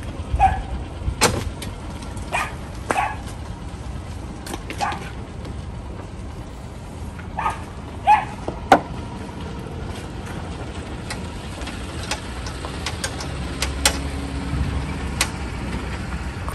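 A dog barking now and then, about six short barks spread through, with a few sharp metallic clicks from hand tools on the car battery and a low steady rumble underneath.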